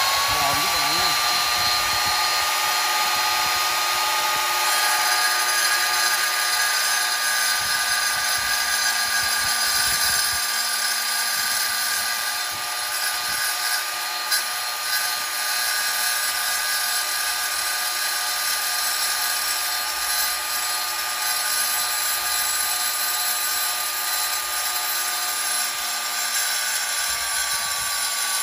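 Electric wet tile saw running, its blade whining at a steady pitch after rising to speed in the first second or two. A glass bottle is turned slowly against the wet blade, which grinds a score line around the glass.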